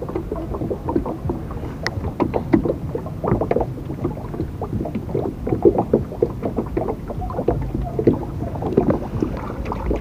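Irregular water sloshing and splashing with small knocks, several a second.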